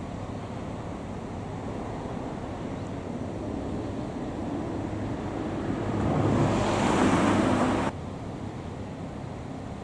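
Traffic and wind rush: a steady road noise that swells over about three seconds to a loud peak, then cuts off abruptly about eight seconds in.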